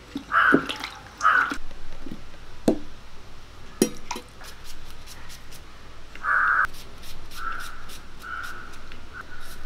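Crows cawing: two caws close together at the start, a louder one past the middle and two softer ones near the end. A few sharp knocks come in between.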